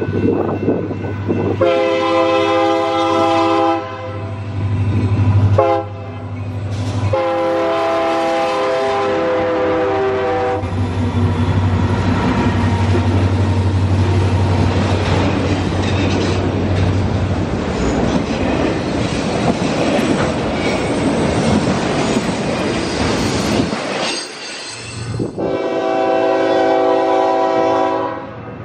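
Union Pacific diesel freight locomotives sound a multi-chime air horn as they approach: a long blast, a short one and another long one. The engines then pass with a steady low drone, followed by the rumble and clickety-clack of the autorack cars rolling by. After a sudden break near the end, a second approaching freight train, led by BNSF locomotives, sounds a long horn blast.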